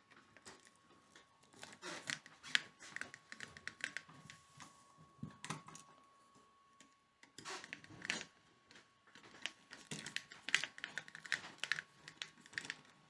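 Irregular light clicks and taps, in small clusters, of a wall light switch and its wires being handled and pulled from a gang box.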